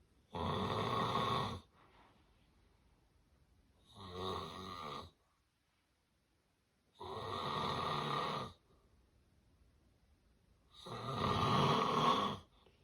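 Four loud, rasping snores, each lasting a little over a second, about every three and a half seconds, with quiet breathing pauses between them. The uploader presents this as the snoring of severe sleep apnea.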